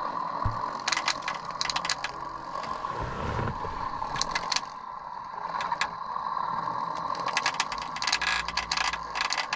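Soundtrack of a video playing from a small TV's speaker: a steady hiss with clusters of sharp clicks and rattles.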